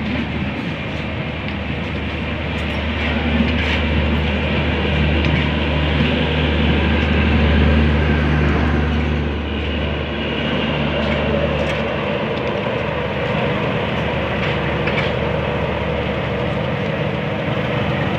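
Passenger train coaches running past close by on the adjacent track: a steady rumble and hiss of wheels on rails. Under it runs a deep steady engine hum, loudest about eight seconds in, which stops about twelve seconds in, leaving the wheel noise.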